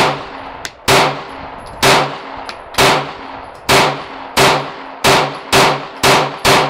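A semi-automatic gun firing about ten shots in a steady string, roughly one a second at first and coming faster toward the end. Each shot is followed by a brief low ringing.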